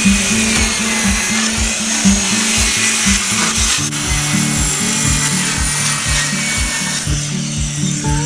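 Background music with a steady beat and bass line, over the hiss of a power saw cutting wood that stops near the end.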